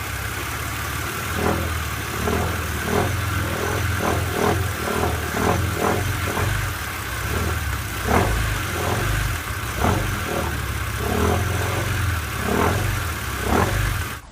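BMW Z4 Coupé engine idling with a steady low hum and an irregular clacking rattle from the belt drive, roughly two knocks a second at uneven intervals: the sign of a defective alternator overrunning (freewheel) pulley.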